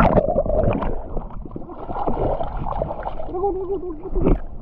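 Sea water splashing over the camera as it plunges under the surface, then muffled gurgling and sloshing while it is under and breaks back out.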